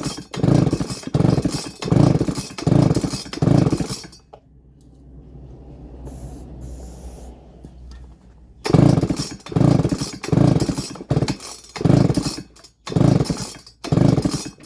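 Baumr-AG SX92 chainsaw's recoil starter pulled over and over in two quick runs, about one pull a second, with a pause of about four seconds between them. The engine does not fire, and the owner next turns to the spark plug.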